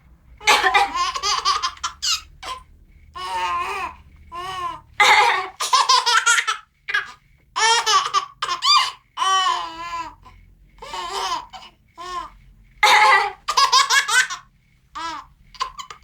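Two-month-old baby laughing in repeated bursts of high, pulsing cackles separated by short pauses.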